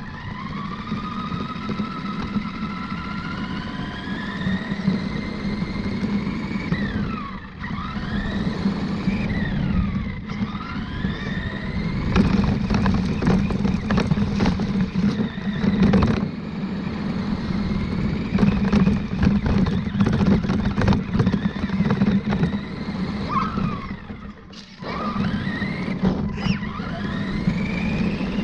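RC truck's motor whining, its pitch gliding up and down as the truck speeds up and slows, over a steady low hum. Frequent knocks and rattles run through it, thickest in the middle stretch, and the motor drops away briefly twice.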